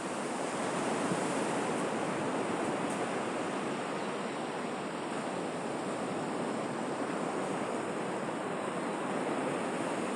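Ocean surf: a continuous wash of breaking waves, fairly steady with only slight swells in loudness.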